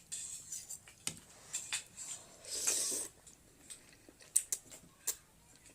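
Utensils clicking and tapping against a bowl while eating chicken thukpa noodle soup, with a short rush of noise about two and a half seconds in.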